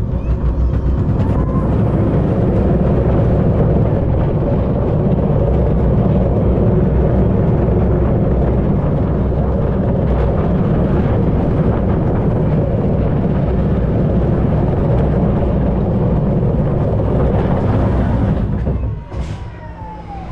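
Steel family roller coaster train (Zierer Force Two) running along its track, a loud, steady rumble of wheels on rails. About nineteen seconds in the noise drops away sharply and a short squeal sounds.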